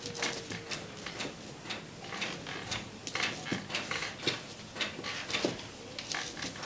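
Wooden stirring stick knocking and scraping against an aluminium pot as thick fufu dough is worked, in short, irregular knocks about three a second.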